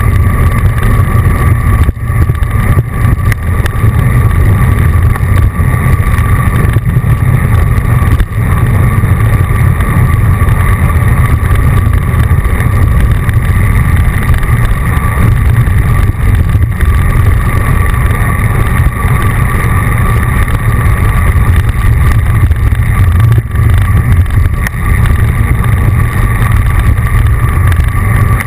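Loud, steady wind rumble on a bike-mounted action camera's microphone while riding a road bike at speed, mixed with road noise, with a faint steady high tone above it.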